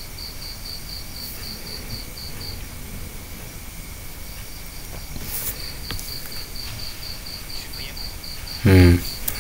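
High-pitched chirping in even pulses, about four a second, over faint hiss; it stops for a couple of seconds in the middle, then resumes. A brief loud pitched sound cuts in near the end.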